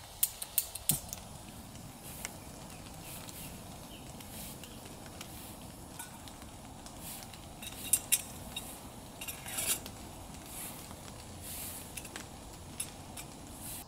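Small stainless steel cups and a camp pot clinking and knocking as they are picked up and set down, with a few sharp clinks in the first second and again around eight to ten seconds in.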